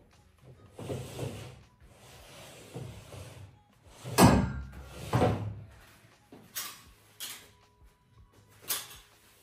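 A metal folding chair being moved on a wooden floor, with two loud knocking scrapes about four and five seconds in. A flat mop swishes over the floor before them, and a few light knocks follow.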